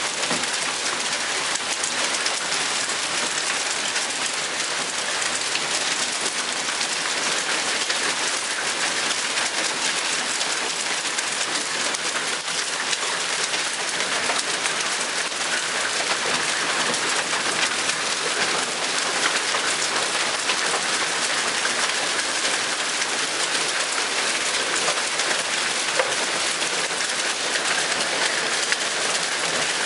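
Heavy rain with small hail falling in a steady downpour: a dense, even hiss peppered with many fine ticks of impacts.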